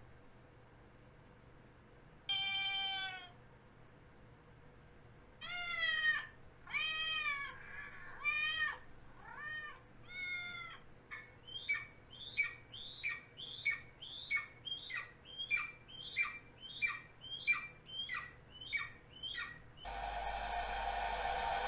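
A squeaky dog toy squeaks once, then a cat meows several times. A quick run of short, high, falling cries follows, about two a second. Near the end a loud, steady buzzing sound starts.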